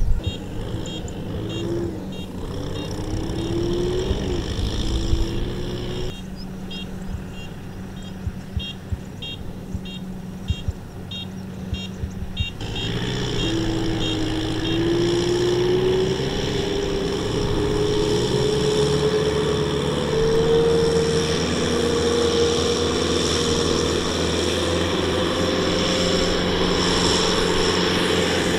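Kubota M6040SU tractors' diesel engines running under load, the engine note rising twice as they are revved to push and pull through the field.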